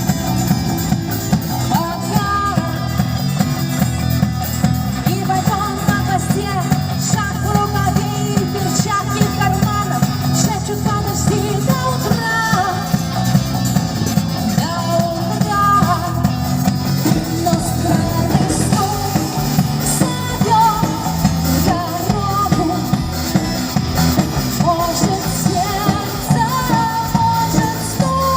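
Live band music with a singer's voice over a steady beat.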